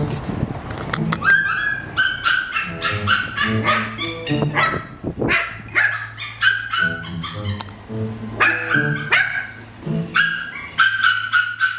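Puppies yipping and barking in quick runs of short, high-pitched calls, over background music.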